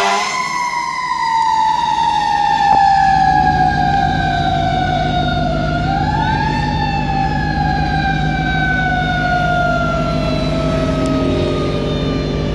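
Fire truck siren in a long, slowly falling wail; its pitch swings back up briefly about halfway through and then falls slowly again. A low, steady rumble runs underneath.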